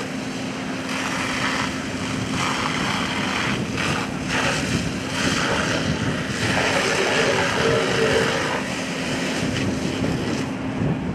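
Fire hose spraying water onto a smoking pile of burning garbage, a hiss that comes and goes in stretches. Underneath runs the steady drone of an engine with a constant hum.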